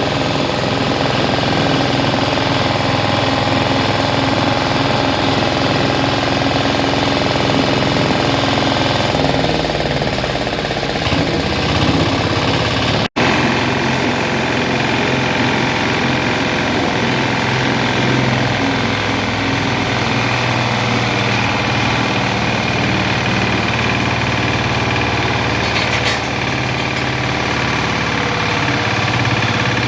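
Dacron fibre grinding machine running steadily, a loud, even mechanical drone with a rattle from its drive and rotor.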